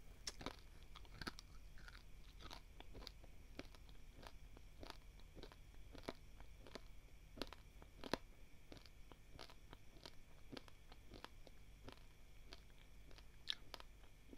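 Faint crunching of dry, uncooked basmati rice grains being chewed by a person: many sharp, irregular crunches, a couple a second. A louder crunch comes about eight seconds in and another near the end.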